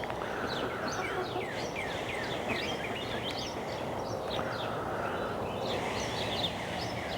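Birds chirping: many short, quick chirps that fall in pitch and overlap, over a steady background of outdoor noise.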